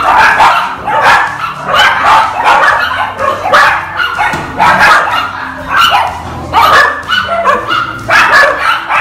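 Dogs barking loudly, many short sharp barks in quick succession, some overlapping.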